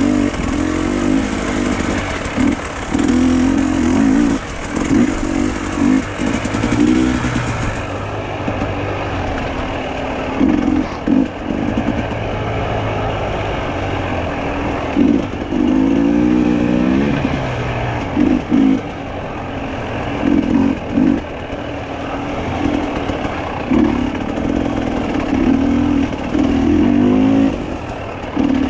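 A motor vehicle's engine running and revving, its pitch rising and falling again and again as the throttle opens and closes, over steady road noise.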